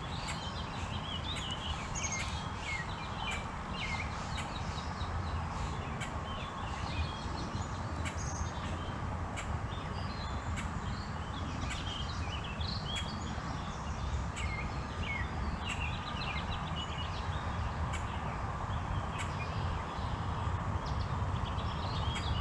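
Small songbirds chirping and calling again and again, with short bright chirps coming every second or so over a steady low outdoor rumble.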